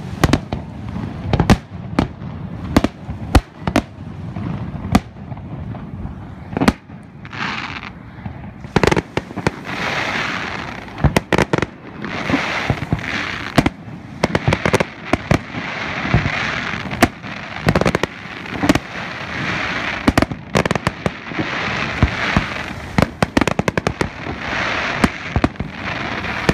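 Aerial firework shells bursting in a rapid, irregular series of sharp bangs, with a steady hiss filling the gaps between them from about nine seconds in.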